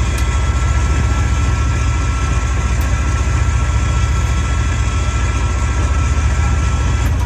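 Fishing boat's engine running steadily with a fast, even low throb and a steady high whine above it.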